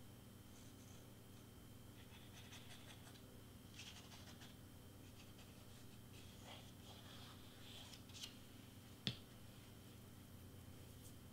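Faint scratching and rustling of a glue bottle's nozzle and hands working over cardstock, over a low steady hum. About nine seconds in comes one sharp tap as the glue bottle is set down on the cutting mat.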